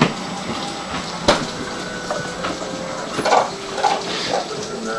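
Young puppies giving a few short squeaks and whimpers over a steady hiss, with one sharp click about a second in.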